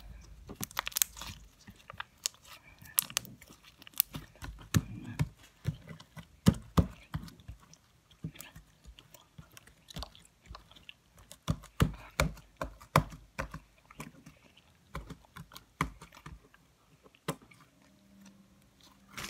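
Fluffy slime made from glue, shaving cream and borax being squeezed and pulled by hand, giving off irregular wet pops and clicks.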